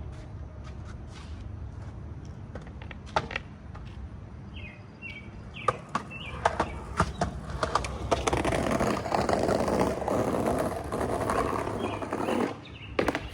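Skateboard wheels rolling over pavement, getting louder about eight seconds in and stopping abruptly near the end, with sharp clacks of the board before and after. Birds chirp now and then.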